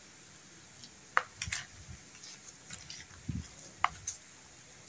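Spoon mixing chopped frog meat and seasonings in a plastic basin: a few scattered light clicks and wet knocks of the spoon against the bowl and the meat.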